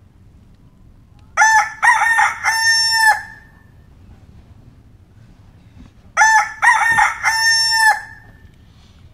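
A rooster crowing twice, about five seconds apart. Each crow is a loud, multi-part cock-a-doodle-doo ending on a long held note.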